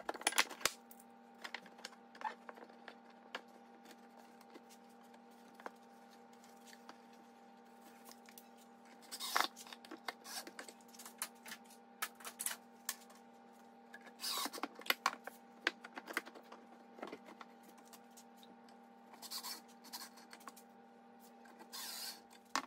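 Quiet workshop room tone with a steady low hum, broken by scattered faint clicks and knocks and a few short scrapes of the wooden drawer box being handled on the bench.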